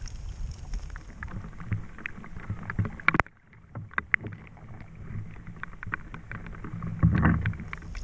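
Scattered clicks and knocks of gear and hands on a fishing kayak over a low wind rumble, with a sharp knock about three seconds in and a louder dull thump near the end.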